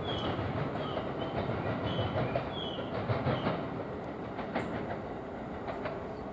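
Electric multiple-unit train running away over the rail joints and points: a steady rumble with irregular wheel clicks, fading slightly toward the end.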